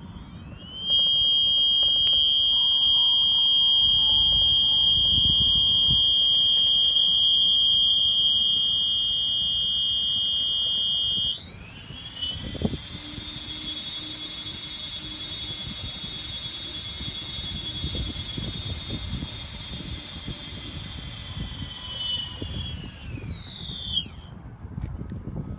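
Brushless motors of a DJI S1000+ octocopter, without propellers, spinning after arming with a steady high electronic whine. About halfway through the pitch steps up. Near the end the whine glides down and stops as the motors spin down. The motors start one at a time because the elevator and rudder channels were in the wrong order for the DJI A3 flight controller.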